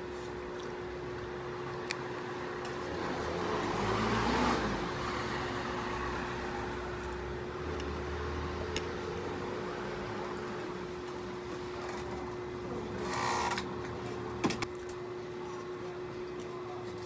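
A vehicle passing by, its sound swelling and fading about four seconds in, with a smaller swell near the end, over a steady low hum. A few light clicks of a metal spoon and fork on a plate.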